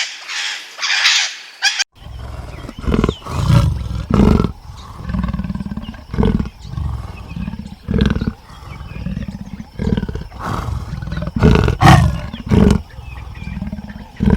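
A bird squawking harshly for the first two seconds, then after a sudden cut a lion roaring: a run of deep calls every second or two.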